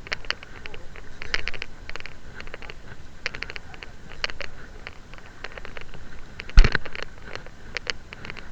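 Irregular clicks and ticks of fishing tackle being worked while fighting a fish on a rod and reel, with one heavy thump about six and a half seconds in.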